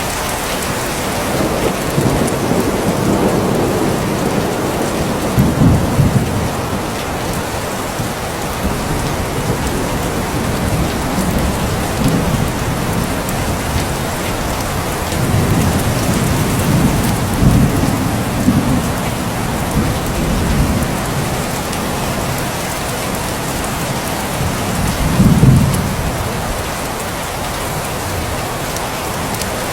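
Steady rain falling, with rolling thunder: low rumbles swell a few seconds in, again around the middle, and loudest about three-quarters of the way through.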